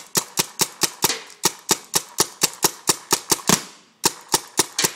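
Piranha CO2 paintball gun fired rapidly, a quick even string of sharp pops at about four to five shots a second, with a brief pause before it resumes near the end.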